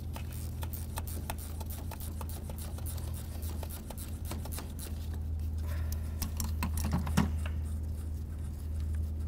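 Ratchet wrench clicking in runs of quick ticks as a bolt is worked loose on the engine, over a steady low hum.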